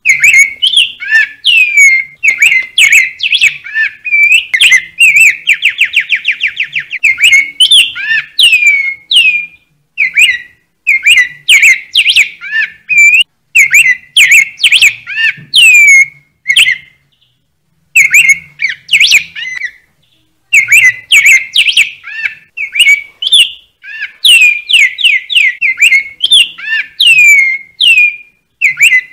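Bird song: a fast, unbroken run of loud, downward-sliding chirps, with a rapid trill about five seconds in and a couple of short pauses later on.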